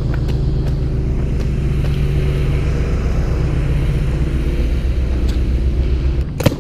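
Car engine running steadily with a low hum, cutting off about six seconds in, followed by a sharp knock.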